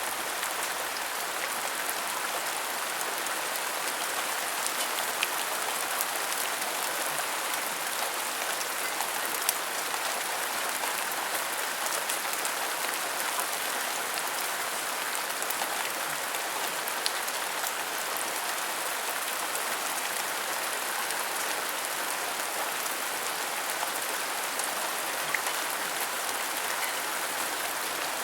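Steady rain falling on a surface, a constant hiss with scattered sharper drop ticks here and there.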